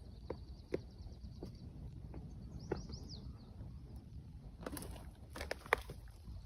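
Outdoor ambience: a low steady rumble with a short run of high bird chirps about three seconds in, and scattered sharp clicks and snaps that cluster into a quick flurry past the middle.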